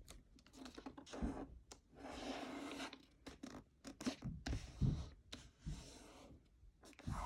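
Sheet of printer paper being folded and creased by hand: faint crinkling and tapping, with a longer scraping stroke about two seconds in as the fold is pressed flat.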